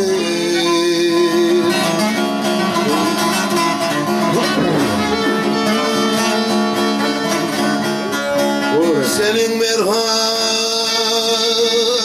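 Bağlama (long-necked Turkish saz) strummed steadily in a folk melody. A man's voice comes in singing near the end.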